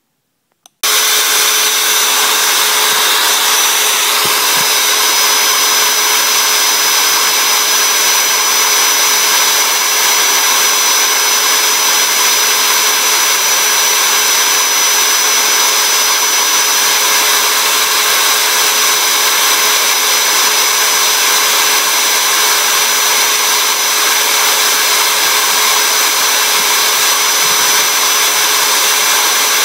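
Small electric motor spinning a sanding drum, running steadily at one even pitch while a thin wooden stick is sanded against it. The sound starts suddenly about a second in.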